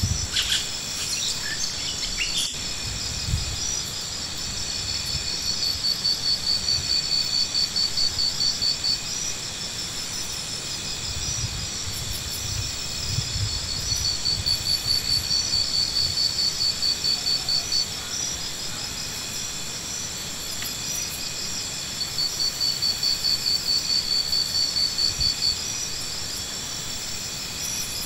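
Insects chirping in a high, steady trill that swells in repeated pulsing spells of a few seconds each, with a few soft low thumps now and then.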